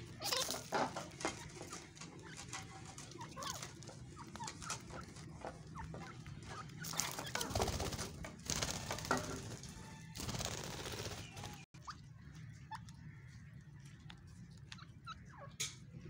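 Game birds and rabbits feeding on grain scattered on concrete: irregular small taps and clicks of beaks pecking at the seed, with a few louder rustling bursts.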